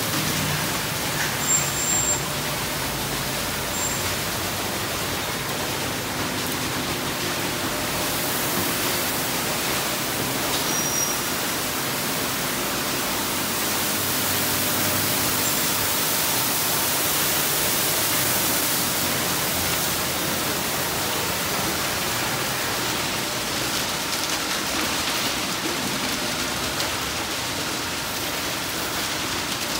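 Tunnel car wash heard from inside the car: water spray and spinning cloth brushes swishing and slapping against the body and glass in a steady wash of noise, with more spray hiss from about 8 to 19 seconds in.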